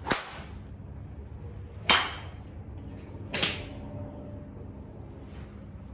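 Three sharp cracks of golf drivers striking balls, about a second and a half to two seconds apart, the middle one the loudest.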